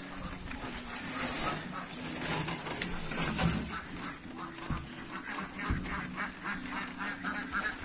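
Domestic ducks quacking, a chorus of short calls in quick runs that grow busier in the second half, with rain falling.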